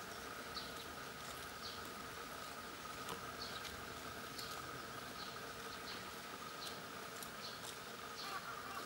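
Outdoor pond ambience: a steady high drone with short faint high chirps every half second or so. Near the end an eastern spot-billed duck starts calling.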